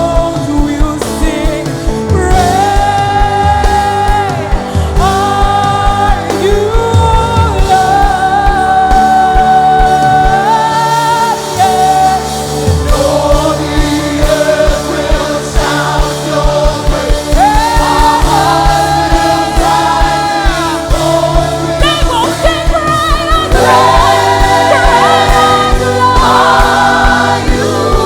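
Live gospel worship music: voices holding long sung notes over a band with bass and a steady drum beat.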